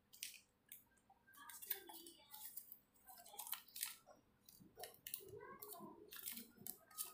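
Handling of a transparent plastic hard-disk enclosure and its cable: a string of short, faint crinkles and clicks of plastic being turned over and manipulated.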